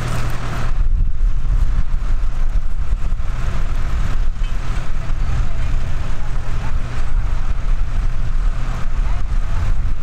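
Tractor diesel engine running steadily under load, pulling a mounted plough through the soil at a slow walking pace.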